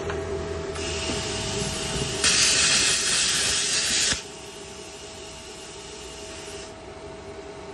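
Izumi plasma cutter running with a steady machine hum: air starts hissing from the torch about a second in, a much louder harsh hiss of the torch firing follows for about two seconds, then the air hisses on more quietly for a few seconds and stops.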